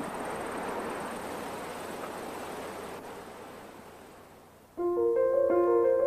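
Documentary soundtrack music. A soft rushing hiss fades away over the first four seconds or so. Near the end, held keyboard notes come in suddenly as a sustained chord.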